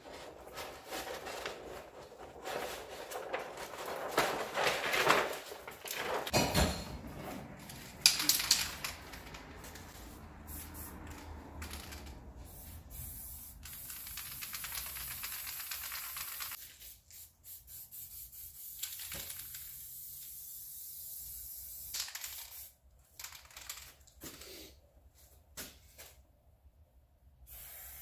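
Aerosol spray-paint can hissing onto paper: from about ten seconds in a long steady spray, then shorter sprays that start and stop. Before that, stiff kraft paper rustles and crackles as it is pressed against the wall, with a sharp knock about eight seconds in.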